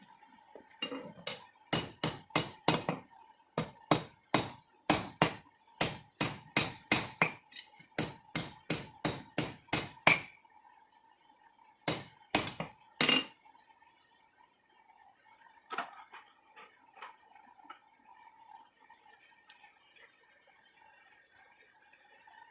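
Hammer blows on hot rebar steel at a blacksmith's anvil, forging a knife blade: a run of quick ringing strikes, about two to three a second, for some nine seconds, a short pause, then three more blows, followed by faint light clinks. A faint steady hum runs underneath.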